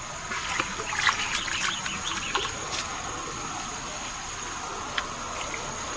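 Birds chirping in short, wavering calls during the first few seconds, over a steady high-pitched insect drone.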